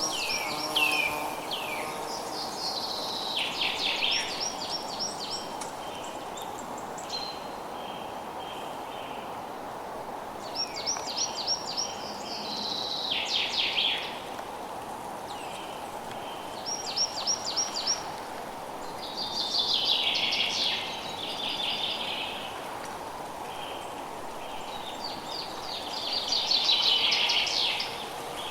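Forest birds singing: short phrases of rapid high trills and chirps come every few seconds, with the loudest near the end. A steady outdoor hiss runs beneath them.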